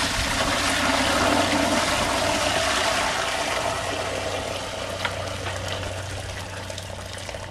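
Hydrogen peroxide poured in a steady stream from a 5-gallon plastic bucket into a 20-quart stainless steel stockpot, splashing and foaming as it fills the pot. The pouring sound eases off gradually toward the end.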